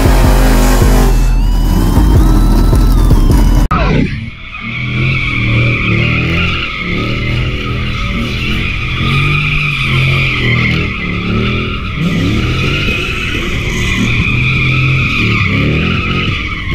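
Loud intro music for the first few seconds, cut off abruptly. Then a car spinning its tyres: a steady high tyre squeal while the engine revs up and down underneath it.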